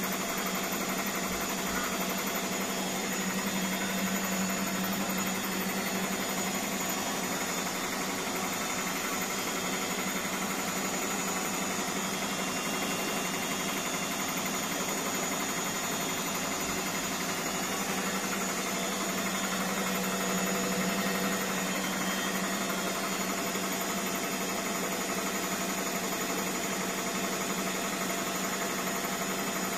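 Indesit BWSE 61051 front-loading washing machine in its spin cycle, the drum turning at a steady speed with an even hum, running on freshly replaced drum bearings.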